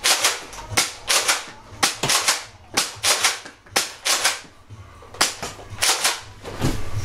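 A Nerf Deploy CS-6 spring-powered foam-dart blaster being fired again and again: about a dozen sharp plastic pops and clacks at irregular intervals.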